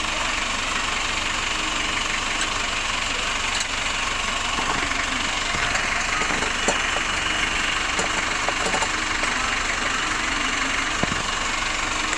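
A vehicle engine idling steadily. Occasional small clicks and rubs of plastic and rubber sound over it as the headlight bulb and its rubber boot are worked into place.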